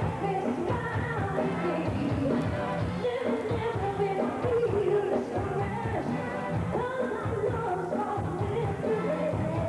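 Upbeat pop song performed live in a club: a woman sings the melody into a microphone over a steady dance beat and bass line.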